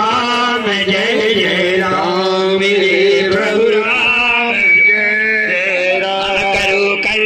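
Hindu devotional aarti song being sung with instrumental backing, the voices moving over a steady held drone note.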